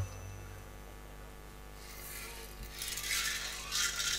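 Faint steady mains hum from the stage sound system between lines of dialogue, with some soft rustling noise from about halfway through.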